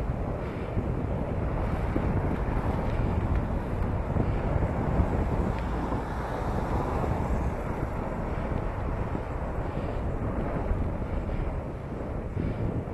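Wind buffeting the microphone of a camera carried on a moving bicycle, a steady rushing rumble, with street traffic underneath.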